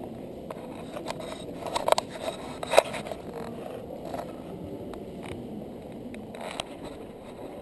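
Handling noise from a handheld camera: rubbing and scraping with a few sharp knocks, loudest twice about two and three seconds in, over a steady low murmur of a crowded hall.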